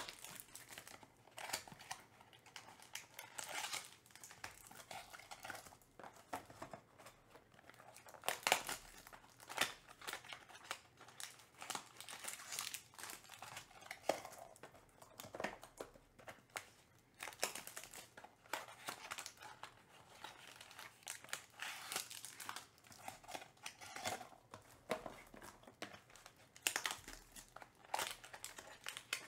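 Thick trading cards being slid off a stack and shuffled through by hand: an irregular run of papery scrapes, rustles and small clicks as card stock rubs against card stock.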